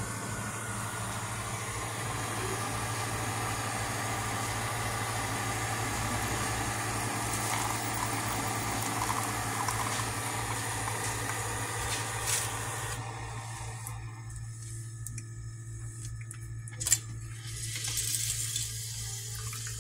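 Single-serve coffee maker brewing into a ceramic mug: a steady pump hum under hot water streaming and gurgling into the cup. About two-thirds of the way through the pouring noise falls away, leaving the hum, with a sharp click a few seconds later and a brief hiss near the end.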